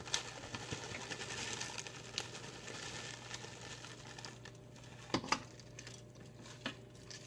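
Soft rustling and crinkling as grated Parmesan cheese is shaken out of a plastic bag and a measuring cup into a food-processor bowl of basil, with a few light taps about five seconds in.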